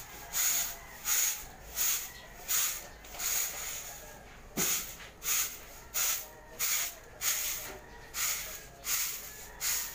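Broom sweeping thick volcanic ash across concrete pavement: a regular swish about every two-thirds of a second.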